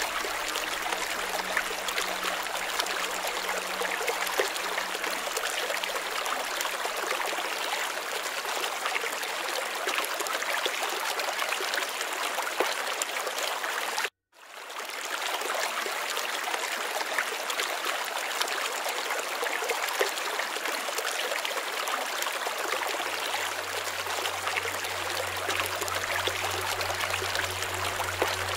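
Steady rush of running water, like a stream, that cuts out for a moment about halfway through and then starts again.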